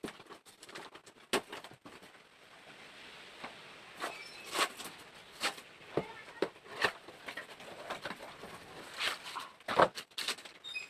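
A parcel's packaging being handled and opened by hand: irregular crackles, taps and clicks, a dozen or so sharp ones, with a few short high squeaks between them.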